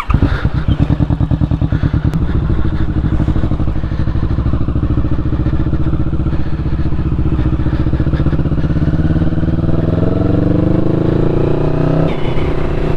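Motorcycle engine running as the bike pulls away, steady at first, then rising in pitch as it accelerates in the last few seconds.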